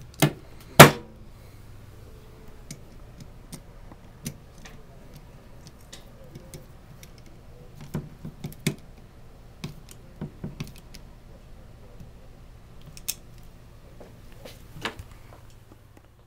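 Metallic clicks and clacks from handling the parts of a Remington 870 pump shotgun: two sharp, loud clacks about a second in, then scattered lighter clicks.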